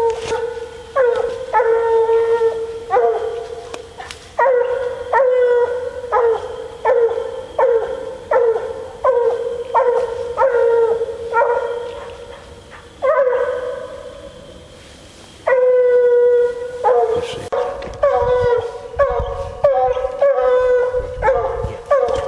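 Bluetick coonhound baying over and over, about one to two barks a second, with two longer drawn-out bawls a little past halfway.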